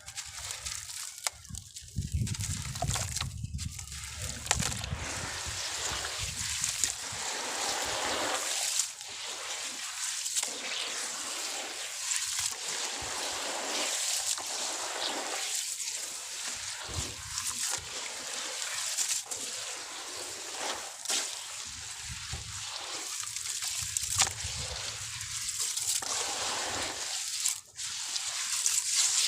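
Sand-cement chunks crumbling in water: a steady hiss with sloshing and scattered sharp clicks.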